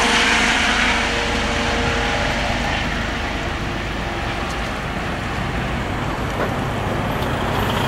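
Trauma helicopter flying overhead and climbing away, its rotor and turbine noise a steady wash that slowly fades over the first few seconds and then holds.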